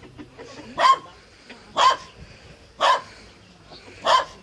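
A trapped dog barking four times, about once a second, each bark short and loud.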